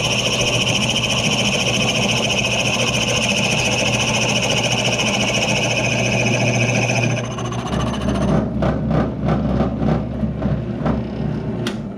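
Electric power saw running steadily with a high whine; the whine stops about seven seconds in, followed by a series of knocks and clatter.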